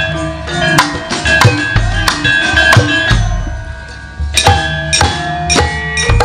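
Javanese gamelan ensemble playing: struck metallophone keys ring out in a steady run of notes over kendang drum beats, easing off briefly just before the middle and picking up again.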